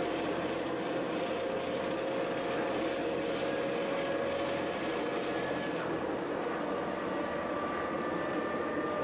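Running noise inside a diesel railcar under way: a steady rumble of engine and wheels on rail with a held hum. A fainter, higher tone joins about six seconds in.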